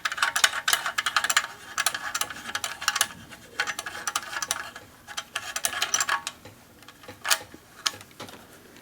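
Rapid clicking and rattling of cables and connectors being handled as a radio amplifier is unhooked, in two runs of a few seconds each, then one sharper click near the end.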